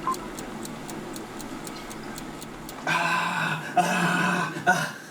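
Clock ticking steadily, about three ticks a second. About three seconds in, a louder hissing sound with a steady hum comes in, in short stretches, and drowns the ticking.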